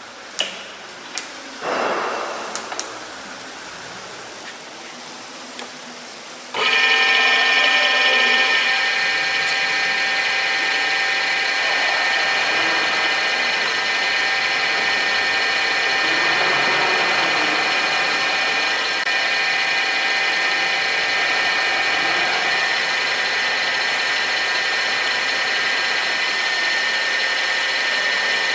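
Knuth VHF 1 universal milling machine: a few sharp clicks and knocks, then about six and a half seconds in its spindle drive starts abruptly and runs steadily with a whine of several tones.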